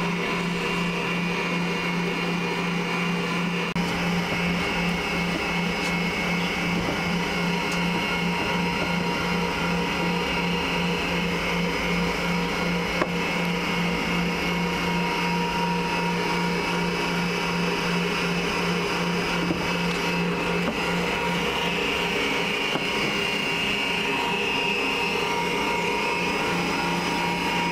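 Electric stand mixer running steadily at one speed, its beater working a cream filling in a stainless steel bowl, with a constant motor hum and whir.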